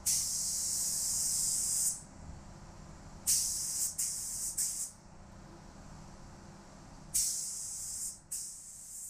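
Compressed-air gravity-feed spray gun spraying epoxy primer onto steel truck rims, hissing in three trigger pulls. The first pull runs about two seconds from the start, the second comes about three seconds in with short breaks, and the third near the end.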